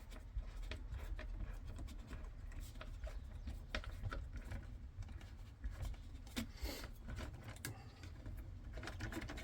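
Faint scattered clicks and scrapes of a hand tool and small metal and plastic parts, as the bolts holding a steering wheel's airbag spring plate are undone, over a low steady hum.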